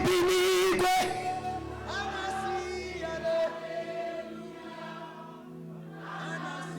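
Worship singing with accompaniment: a loud, held sung note with vibrato for about the first second, then softer group singing over sustained chords.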